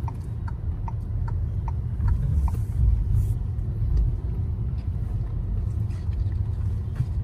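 Low rumble of road and engine noise heard from inside a car's cabin in slow traffic. Over it, the turn-signal indicator ticks about two and a half times a second while the car turns, stopping about two and a half seconds in.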